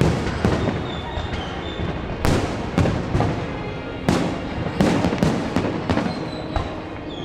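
Aerial fireworks going off: a quick, irregular string of sharp bangs and cracks, about a dozen, with the loudest clustered in the middle.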